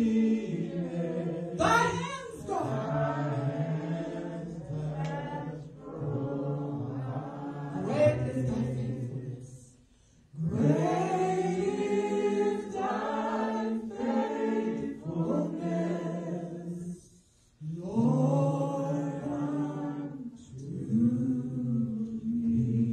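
A woman singing unaccompanied through a microphone, in long held phrases, with two short breaks about ten and seventeen seconds in.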